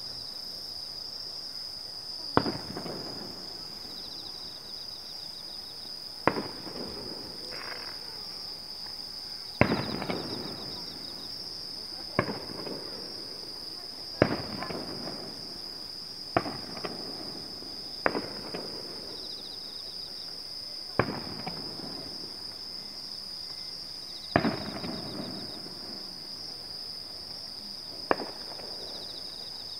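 Fireworks shells bursting one at a time: about ten sharp bangs a few seconds apart, each trailing off in a rolling echo. Insects chirr steadily underneath.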